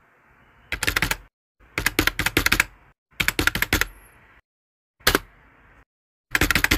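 Typing sound effect: five short runs of rapid keystroke clicks separated by brief silences.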